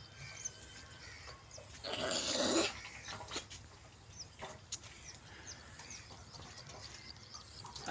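Liquid poured from a plastic jerrycan into a metal fuel tank, a thin steady trickle with a louder noisy gush, just under a second long, about two seconds in.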